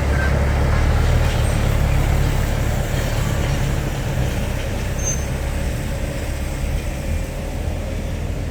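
Diesel dump truck engine running steadily with a low drone that eases off slightly over the few seconds.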